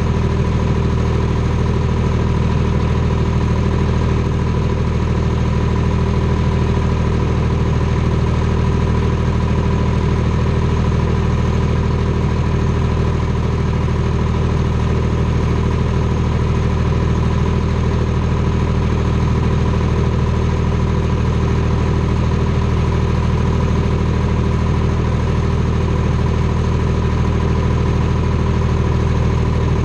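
Detroit Diesel 3-53 three-cylinder two-stroke diesel in a Clark 664B skidder, idling steadily, heard from the hood right beside its exhaust stack and muffler.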